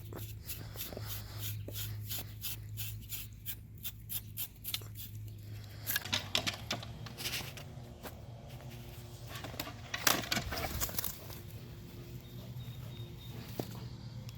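A dog moving about close by, with a quick, regular run of short strokes, about three a second, through the first five seconds. Louder rustling bursts come later, over a steady low hum.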